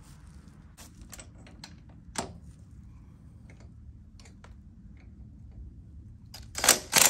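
Scattered light metallic clicks and clinks of tools and suspension parts being handled at a quad's front wheel, with a few loud sharp knocks near the end.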